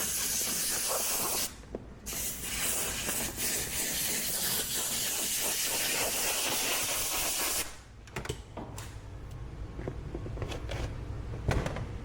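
Compressed-air blow gun hissing into a push mower's carburetor to blow out and dry the water left by contaminated fuel: a short blast that stops about 1.5 s in, then a longer one that cuts off about 8 s in. Quieter handling clicks follow.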